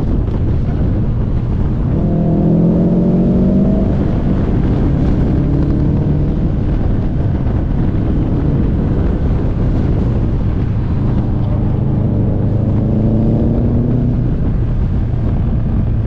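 Car engine pulling hard, its pitch rising about two seconds in and again near the end, over heavy wind rumble on the microphone.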